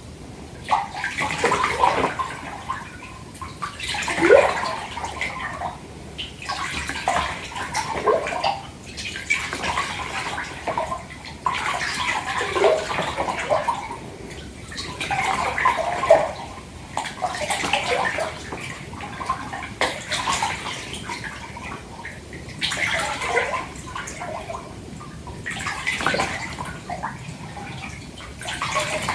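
Water in a filled bathtub sloshed by hands, swelling in waves every second or two.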